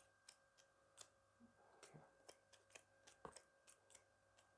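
Faint, quick snipping clicks of barber's scissors, about three a second and slightly uneven, with one louder click about three seconds in, over a faint steady hum.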